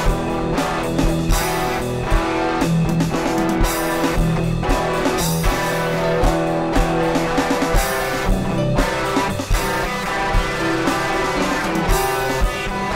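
Live band playing an improvised rock jam: guitar leading over a drum kit, with sustained chords underneath.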